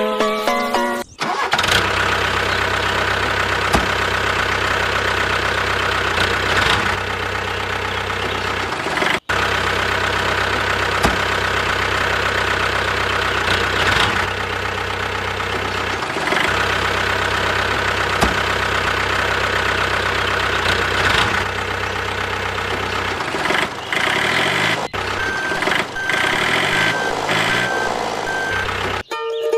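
Truck engine running steadily at idle, then revving up and down near the end, with a few abrupt cuts.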